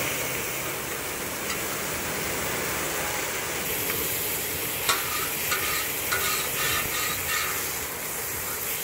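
Wahoo fillets sizzling in butter and oil on a large steel disc pan, with a metal spatula scraping and clicking against the pan in short strokes during the second half.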